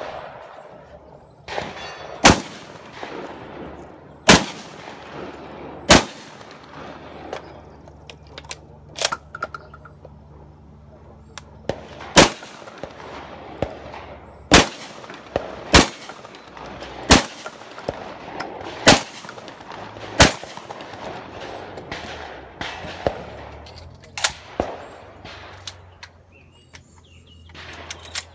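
Shotgun shots fired through a practical-shooting stage: about ten loud sharp reports at uneven gaps of one to three seconds, with a longer pause broken only by fainter knocks and clanks, and some metallic clangs among the shots.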